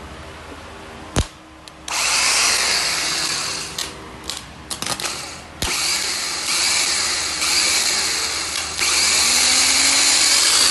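Car starter motor giving a single click, then a loud, high-pitched grinding whir that cuts out and starts again several times, with clicks in between. These are bad-starter symptoms.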